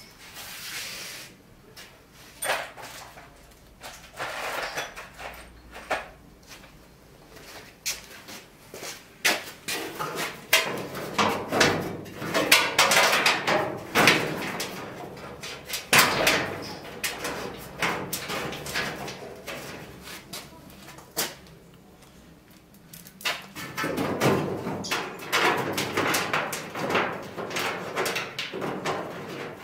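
A stiff sheet being handled, pressed and slid against the rusted sheet-steel rear wheel arch of a VW Beetle body: scraping, rustling and small knocks in irregular spells, with a lull about two-thirds of the way through.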